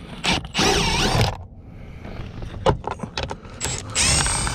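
Hand work on a car's plastic steering-column cover being pulled loose: scattered clicks and knocks, with two spells of high, wavering squeaking of plastic rubbing, one near the start and one near the end.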